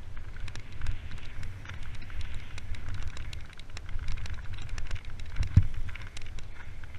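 Mountain bike descending a dirt trail at speed: tyres hissing over dirt and leaf litter, frequent small clicks and rattles from the bike, and wind buffeting the camera's microphone as a steady low rumble. A hard thump comes about five and a half seconds in, through a fast bend.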